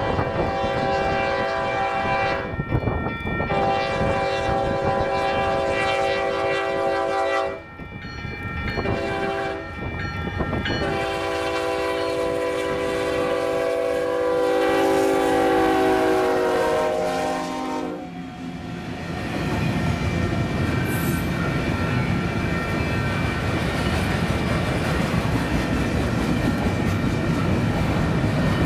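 Union Pacific GE Evolution-series locomotive's air horn sounding the grade-crossing signal: two long blasts, a short one, then a last long blast that drops in pitch as the locomotive passes. Then the steady rumble and wheel clatter of double-stack intermodal cars rolling by.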